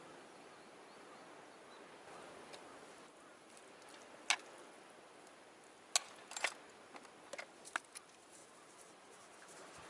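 A few short, sharp clicks and taps, one at a time and then a quick cluster of several, over a faint steady hiss.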